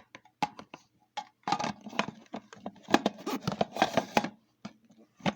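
Vacuum cleaner parts being handled and fitted together by hand: a run of clicks, knocks and short rattles, densest in the middle.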